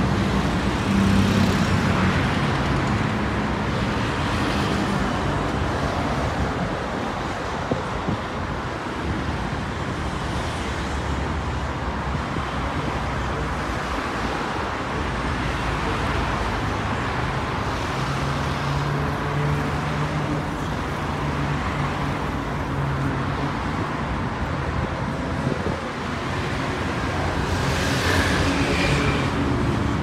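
City road traffic: cars driving past in a steady stream on a busy multi-lane road. Tyre and engine noise swells louder near the end.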